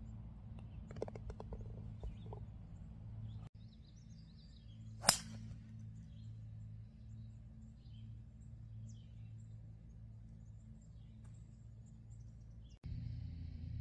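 A 5-wood striking a golf ball off the tee: one sharp, loud crack about five seconds in. Before it, a few faint clicks from a putt on the green.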